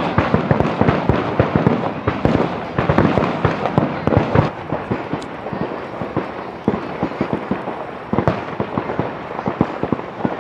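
Aerial fireworks display in a dense barrage: many rapid, overlapping bangs and crackles from shells bursting one after another. It eases slightly midway, then picks up again.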